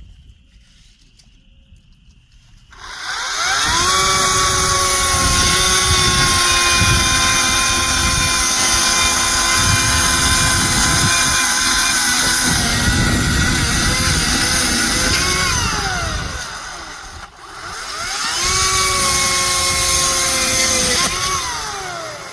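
Chainsaw revving up about three seconds in and running at full speed for around twelve seconds while trimming, then winding down. It revs up again for a few seconds and winds down near the end.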